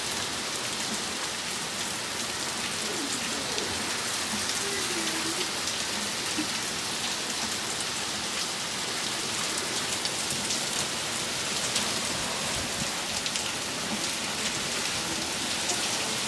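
Steady downpour of hurricane rain, an even hiss of water with many individual drops ticking close by.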